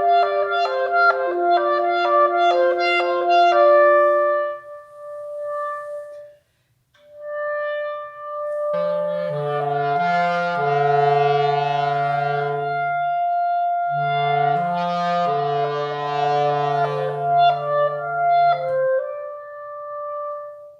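Several overdubbed clarinet parts improvising together. Quick repeated notes run over a held lower note, then thin to a single long note. After a short break, long held notes stack into sustained chords over a low bottom line.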